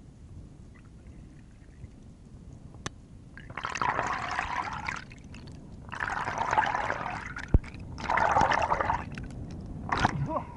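Sea water sloshing and bubbling, heard underwater just below the surface, in three bursts about a second long, with a single sharp click between the second and third.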